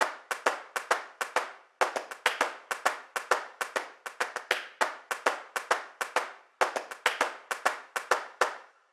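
Rhythmic clap-like percussion in an intro sting: sharp hits, about four to five a second in patterned groups, breaking off twice and stopping sharply at the end.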